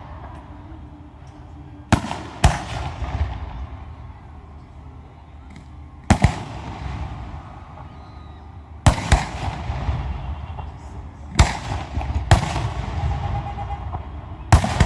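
Aerial fireworks shells bursting: about seven loud booms at uneven intervals, each followed by a rumbling echo and crackle.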